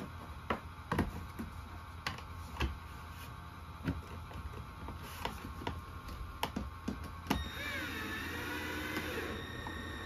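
Plastic headlight housing clicking and knocking as it is handled and pressed into a golf cart's plastic front body, then a cordless drill driving a mounting screw for about two seconds near the end, its motor pitch wavering as the screw goes in.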